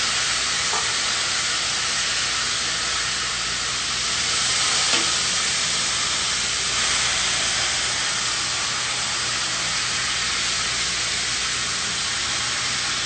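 Pork loin sizzling in hot fat in a pan: a steady frying hiss, with a light knock about five seconds in.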